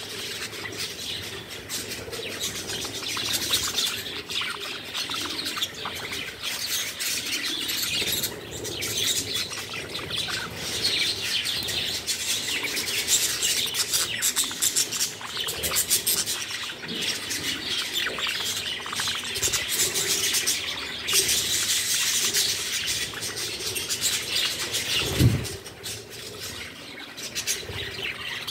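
A flock of budgerigars chattering and chirping continuously, many birds at once, as they crowd together to feed. Near the end there is a single thump.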